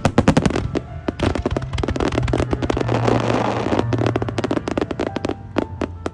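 Fireworks going off in a dense run of sharp bangs and crackles, thickest in the middle and thinning out near the end, with background music underneath.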